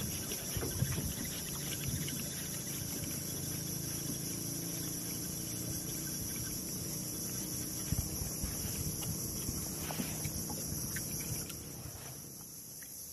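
Insects droning steadily at a high pitch over a faint low hum, with a few small clicks; the drone fades out near the end.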